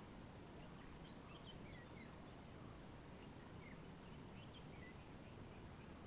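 Faint bird chirps, short and high, scattered over a steady quiet background hiss.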